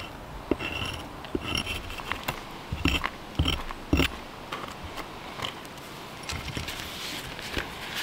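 Axe blade scraping shavings off a stick of fatwood (resin-rich pine) on a wooden stump, in short irregular strokes, each a brief scrape. In the second half the strokes give way to softer scattered ticks and rustles.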